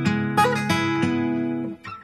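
Background acoustic guitar music: plucked chords ringing on, fading out near the end.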